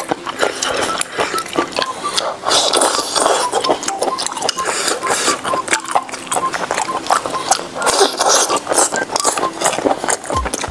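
Close-miked eating of sauced seafood: wet chewing, slurping and smacking, with clicks of snail and shellfish shells being handled and pulled apart.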